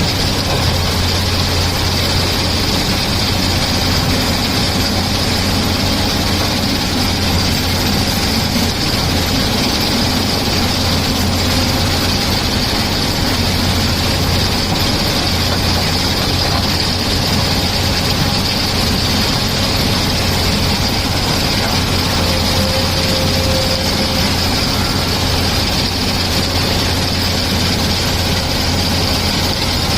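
Excavator's diesel engine running steadily, with an even low hum that does not rise or fall.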